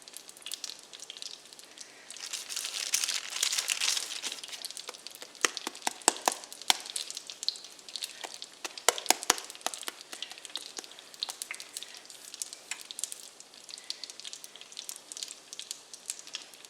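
Dough frying in hot oil and butter in a fry pan: a steady sizzle with many sharp crackles and pops. The sizzle swells louder for a couple of seconds about two seconds in, as fresh dough goes into the oil.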